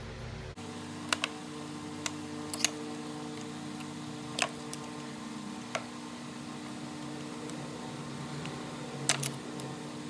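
Scattered sharp clicks and light knocks, about ten of them and some in quick pairs, from pliers and small parts being handled while a fuel-line hose clamp is fitted at a mower carburetor. A steady low hum runs underneath.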